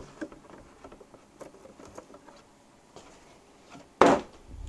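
Light scattered taps and rustles of hands handling a cardboard box, then a sudden loud thump about four seconds in as the box is moved.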